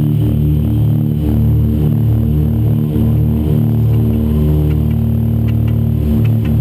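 Background rock music: held chords that change every second or so, without drums.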